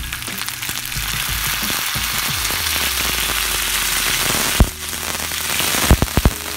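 Raw chicken pieces sizzling as they fry in hot oil and ginger-garlic paste on a tawa, a steady hiss that builds over the first second. A sharp knock about four and a half seconds in and a few quick knocks near the end.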